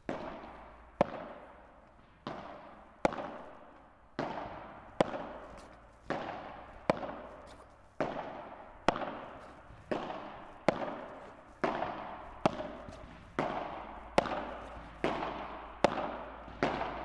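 Padel rackets striking the ball in a steady slow rally, about one sharp pop a second, each followed by a long echo. Louder and softer hits alternate as two players trade shots.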